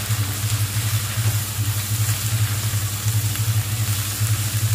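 Green tomato pieces and ground coconut sizzling in a nonstick pan as they are stirred with a silicone spatula, over a steady, pulsing low hum from the induction cooktop.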